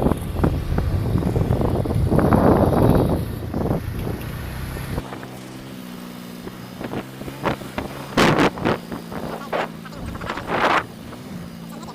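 A vehicle driving slowly over a rough, unpaved road: loud uneven rumble of road and wind noise for the first few seconds, which then changes suddenly to a quieter steady engine hum with a few sharp knocks and jolts.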